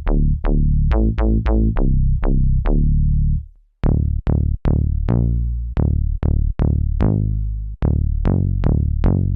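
MES Mini 7 synthesizer playing bass patches: a run of short, punchy plucked notes whose brightness dies away quickly on each note. The sound stops briefly about three and a half seconds in, and a different bass patch with a similar plucky line starts.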